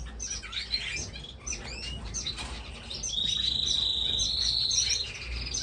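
Many caged finches chirping with short, quick calls; about three seconds in, one bird holds a steady trill at one pitch for around two seconds.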